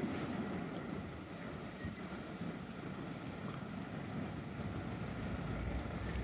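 Low rumble of street traffic as an NGT8D low-floor articulated tram pulls away into the distance, with a thin, very high-pitched squeal in short bursts about four to five seconds in.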